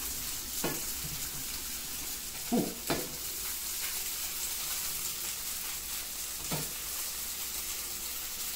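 Potato gnocchi sizzling steadily in hot oil in a frying pan as they sear and brown on their second side. A few short knocks of a slotted spoon against the pan as they are turned, two of them close together a little before the middle.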